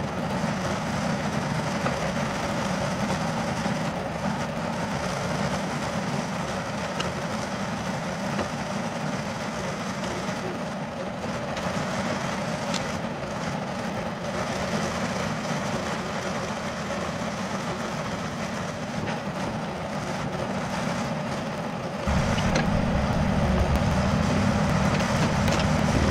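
Yanmar VIO50 mini excavator's diesel engine running steadily while the machine pushes its arm against a tree trunk. About 22 seconds in, the sound becomes suddenly louder and heavier.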